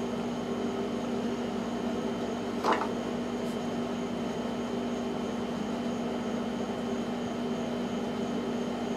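Steady mechanical hum of running equipment with a fixed low tone, unchanging throughout. One short sharp sound a little under three seconds in.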